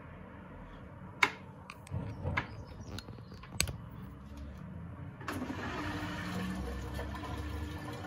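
Beko WTK104121A washing machine: a few sharp clicks and knocks, then water rushing through the machine from about five seconds in, typical of the drain pump pumping out. A steady low hum runs under it.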